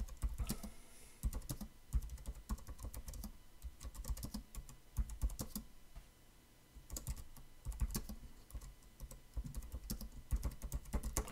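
Typing on a computer keyboard: runs of quick keystrokes with a short pause about six seconds in.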